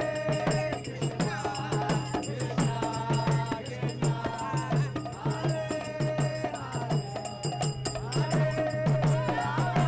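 Chanted singing over a steady held low drone, with hand percussion keeping a quick, even beat.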